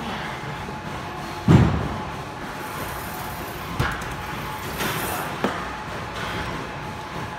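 Gym weight-machine knocks: one heavy dull thud about a second and a half in, then lighter knocks near four, five and five and a half seconds, over steady gym room noise.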